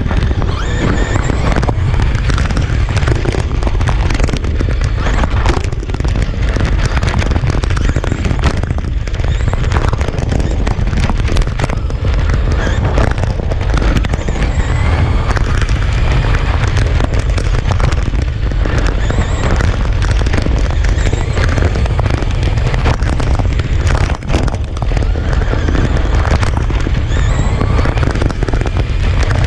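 Onboard sound of a Traxxas RC car running flat out on rough asphalt: a loud, heavy rumble with dense crackling from the tires and shaking chassis. The electric motor's whine rises and falls as the car accelerates and slows.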